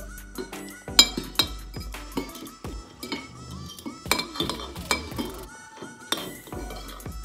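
Metal spoon and fork clinking and scraping against a ceramic bowl, with a string of sharp clinks, the loudest about a second in and again around four to five seconds in.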